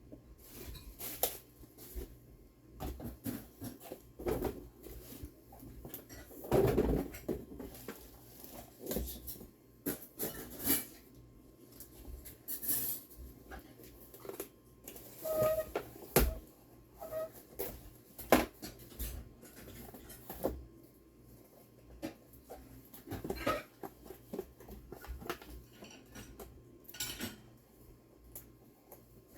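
Hands unpacking a boxed toy: plastic and cardboard packaging rustling and crinkling, with irregular small knocks and clicks as parts are handled.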